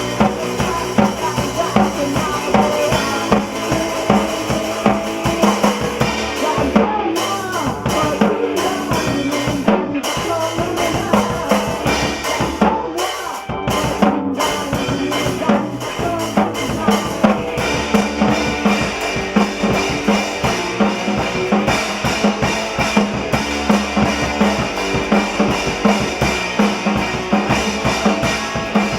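A band playing live in a rehearsal studio, with the drum kit to the fore: bass drum and snare keeping a steady beat under pitched instruments. The cymbals drop out in short gaps about a third of the way in, then pick up again.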